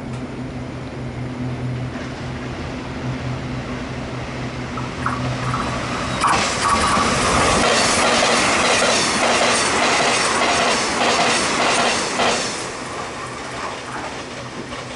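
Puyuma Express TEMU2000 tilting electric train passing through the station at speed: loud from about six seconds in, with a clatter of wheels over the track, then fading after about twelve seconds as it moves away. A steady low hum comes before it arrives.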